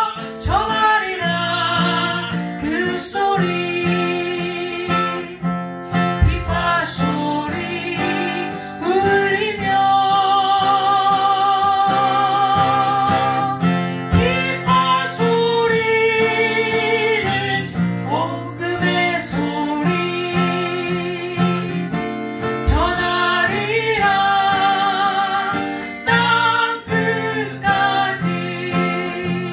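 A woman and a man singing a Korean gospel worship song, the woman's voice leading with vibrato on held notes, over acoustic guitar chords.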